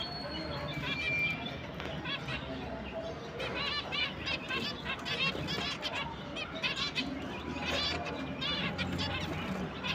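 A flock of zebra finches calling, many short high chirps overlapping; the calling gets busier from about three seconds in.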